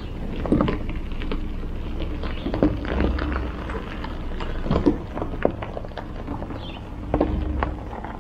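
Tandem-axle dump trailer and pickup truck reversing slowly over gravel: tyres crunching and popping stones in irregular cracks, over the steady low run of the truck's engine.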